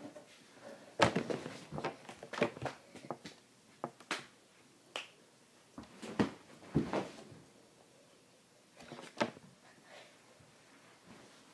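Scattered knocks, thumps and rustles from children moving about on a couch and close to the microphone, thickest in the first half and again once near the end.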